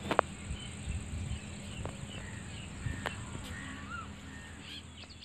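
Rural outdoor ambience: scattered bird chirps over a steady high-pitched insect drone. A few sharp knocks from the handheld phone being handled, the loudest just after the start.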